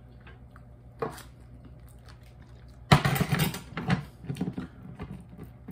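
Close-up eating noises from a Polish sausage sandwich being handled and chewed: a click about a second in, then a loud crackling crunch-and-rustle about three seconds in and scattered smaller mouth and handling noises after it, over a faint steady hum.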